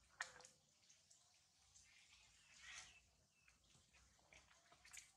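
Near silence, with a few faint scattered clicks and ticks and a faint soft swell of noise a little past halfway.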